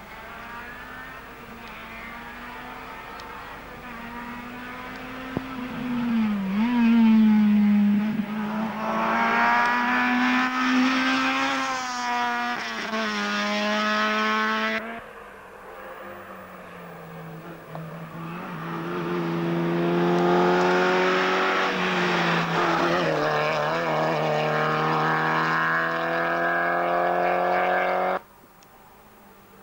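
Rally car engines at full throttle on a stage. One car accelerates hard, its engine pitch climbing and dropping back with each gear change. After an abrupt cut about fifteen seconds in, a second car does the same, and the sound cuts off again near the end.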